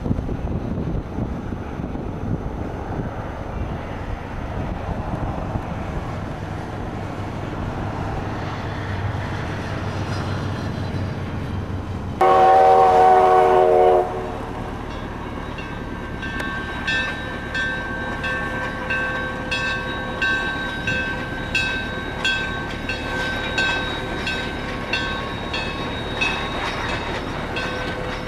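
Road and wind rumble from a moving car. About twelve seconds in, a narrow-gauge steam locomotive's whistle sounds one loud blast of several tones together for about two seconds. After that a bell rings steadily about twice a second as the train passes.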